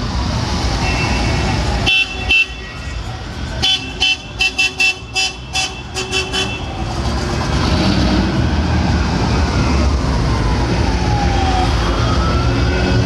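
Car horns honking in celebration: two short honks about two seconds in, then a quick run of about ten short honks, over a siren wailing slowly up and down and the low rumble of slow-moving car engines.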